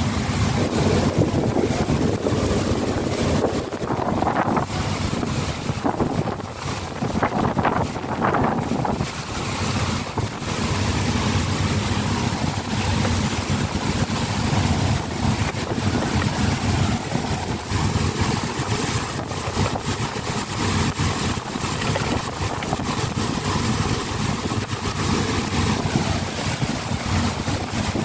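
Wind gusting across the microphone on the open deck of a ship at sea in heavy rain, over a steady rush of rain and sea.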